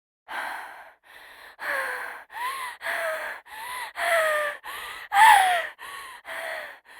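A woman's laboured breathing as in asthma or another breathing problem: about a dozen quick gasping breaths in and out, many with a whistling tone that slides down in pitch. The loudest breath comes about five seconds in.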